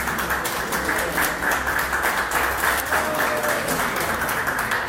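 Audience applauding: many hands clapping in a dense, steady patter that fades near the end.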